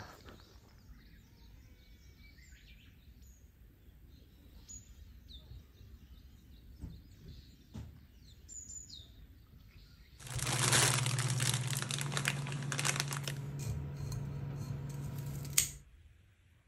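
Faint outdoor ambience with birds chirping now and then. About ten seconds in, a loud rushing noise with a steady low hum comes in for about five seconds and cuts off suddenly.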